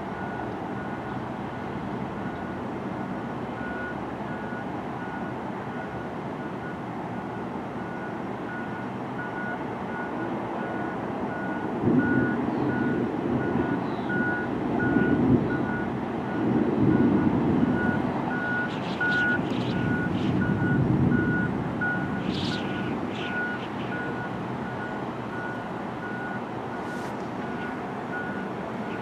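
Thunder rolling: a low rumble swelling in about twelve seconds in and fading away over some ten seconds. Underneath, steady background noise and a regular, evenly spaced electronic beep at one pitch repeat throughout.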